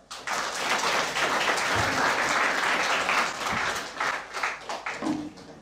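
Audience applauding at the close of a speech, a dense patter of many hands clapping that dies away near the end.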